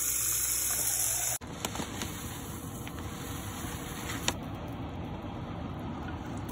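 Water pouring into a saucepan, a steady hiss that cuts off abruptly about a second and a half in. After that comes a low, steady background noise with a few faint clicks and taps of kitchen utensils.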